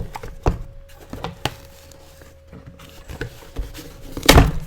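Hands prying open a glued shipping package: scattered light clicks and knocks of the packaging, then a louder, longer rustling handling noise near the end.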